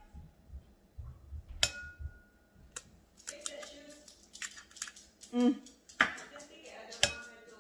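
Egg tapped on the rim of a ceramic bowl with a short ringing knock, then a run of small shell cracks and clicks as it is broken open and dropped in; two more sharp taps near the end.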